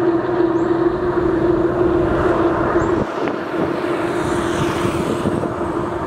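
Diesel engines of road-building motor graders running, the nearest being a Komatsu GD625A, with a steady hum over the engine noise. The sound eases slightly about three seconds in.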